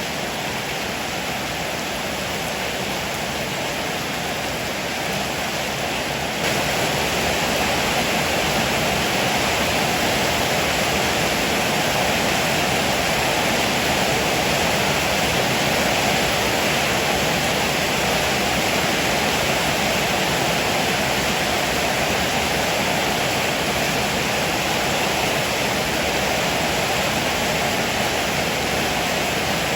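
Heavy rain falling steadily, an even hiss with no thunder claps. It gets a little louder about six seconds in.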